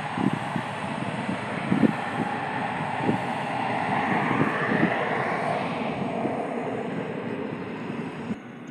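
Jet aircraft passing along the runway: a steady roar with a whine that rises and then slides down in pitch about halfway through. Irregular low thumps in the first few seconds, and the sound drops off sharply near the end.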